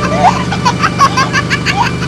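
Background music with quick, high-pitched squeaky voices and giggles over it.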